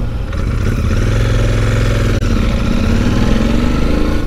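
Royal Enfield Interceptor 650's parallel-twin engine running under way, heard from the sidecar right next to the engine, with a brief break about halfway through and then the engine note rising as it pulls.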